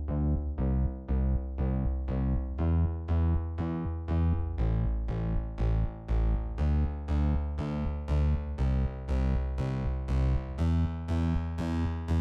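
Background music: synthesizer or electric keyboard playing a steady pulse of chords, about two notes a second over a held bass.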